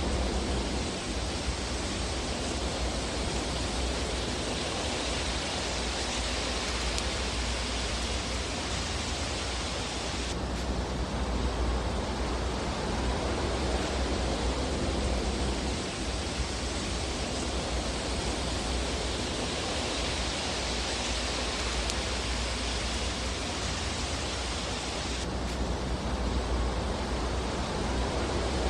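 Steady rushing hiss of a fireplace fire with a low rumble underneath and few distinct crackles. The hiss changes abruptly about ten seconds in and again near the end.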